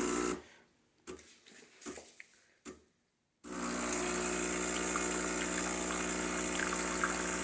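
Breville espresso machine's pump humming, cutting out about half a second in, a few faint clicks, then starting again abruptly about three and a half seconds in and running steadily as water flows through the group head with no coffee in it.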